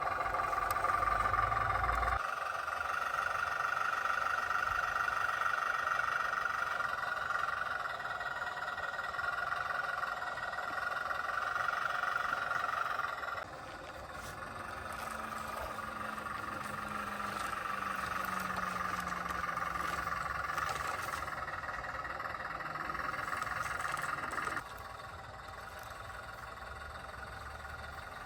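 Small electric motors and gearboxes of radio-controlled construction models whining steadily, changing abruptly in level about 2, 13 and 25 seconds in. A fainter low tone slides downward from about 14 to 20 seconds in.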